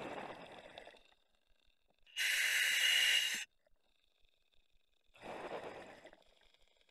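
Scuba diver breathing through an Apeks regulator in an OTS Guardian full face mask. A softer rushing sound comes at the start and again about five seconds in, with a loud, bright hiss about a second and a half long between them that cuts off sharply.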